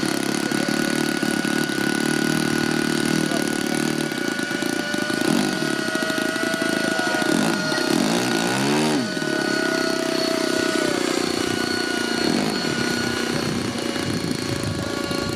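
A radio-controlled model helicopter's small combustion engine and rotor running steadily at a high pitch. Around the middle the pitch swoops up and down as the helicopter lifts off the water, then it settles back to a steady run.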